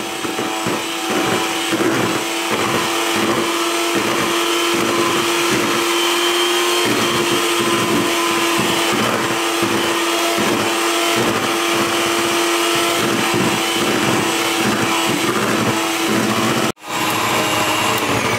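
FAR electric hand mixer running steadily with a constant motor whine, its beaters whipping egg whites as hot sugar syrup is poured in for an Italian meringue. The sound cuts out for a moment near the end, then resumes.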